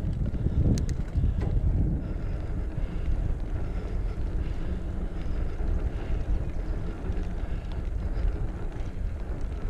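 Wind rumbling on a chest-mounted action camera's microphone while riding a mountain bike over a dirt trail, with the bike's riding noise underneath and two sharp clicks about a second in.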